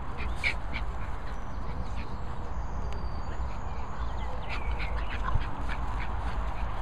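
A French Bulldog and a Bichon Frise playing and chasing: short, scattered grunts and snorts from the dogs over a steady low rumble.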